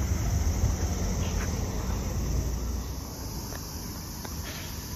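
Insects droning steadily in a high, even hiss, over a low rumble that eases off about three seconds in.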